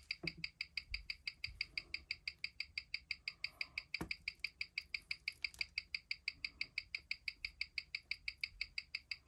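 Ticking of a mechanical watch picked up and amplified by a timegrapher's microphone stand, an even click about six times a second, as the watch's balance beats. The timegrapher shows that the watch is losing about a minute a day. A single knock sounds about four seconds in.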